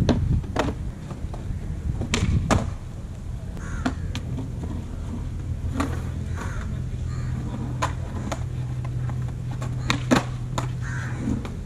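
Skateboard wheels rolling over paving tiles, with sharp clacks of the board hitting the ground every second or two. About ten seconds in comes the loudest moment, a quick double clack as the board flips under the skater and slaps down.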